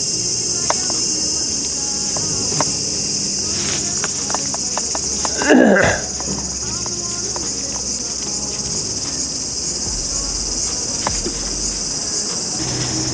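A steady, high insect chorus, with a few faint clicks and one brief louder sound about five and a half seconds in.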